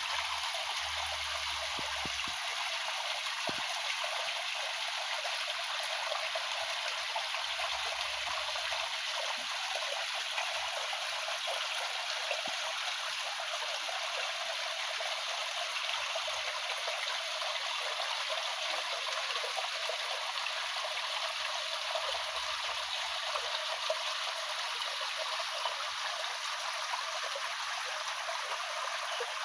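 Stream water running steadily, an even rushing hiss with no break.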